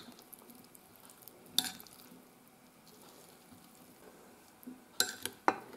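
Metal spoon stirring dressed salad in a glass bowl: soft wet mixing, with a sharp clink about a second and a half in and a few quick clinks near the end.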